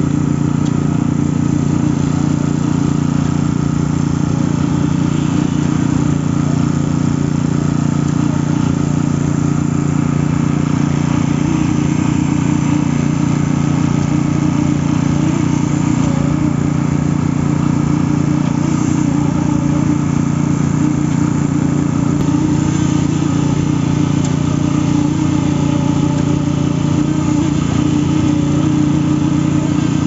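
Machinery engine running steadily at a concrete pour: an even, unchanging drone that carries on without pause.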